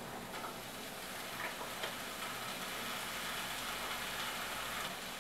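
Food sizzling in a frying pan on a gas stove, a steady hiss that grows a little fuller after about two seconds, with a few light clicks of a utensil against a plastic container early on.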